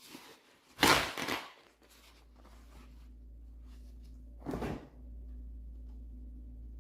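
Refrigerator door being handled: a loud double knock about a second in and another knock at about four and a half seconds, over a steady low hum.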